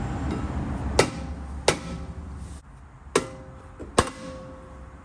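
Dead blow hammer striking a rear brake rotor four times, each blow a sharp knock followed by a short metallic ring from the rotor, to break the rotor loose from the hub.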